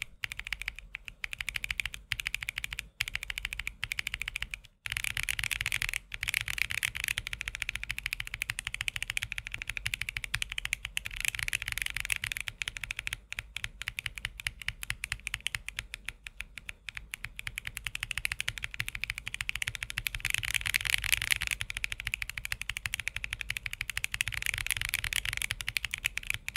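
Fast, continuous typing on a mechanical keyboard with AKKO Creamy Purple Pro tactile switches, which have a PC top housing, a nylon stem and a PA bottom housing: a dense run of keystrokes with a crisp, not-too-loud sound. There are brief pauses in the typing in the first few seconds.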